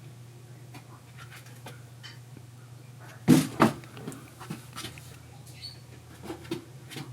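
Kittens moving about a playhouse: scattered light taps and scratches, with two louder thumps a bit over three seconds in, over a steady low hum.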